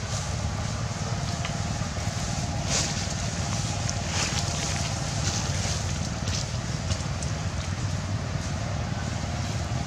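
Wind buffeting the microphone, a steady low rumble, with a few brief rustles over it.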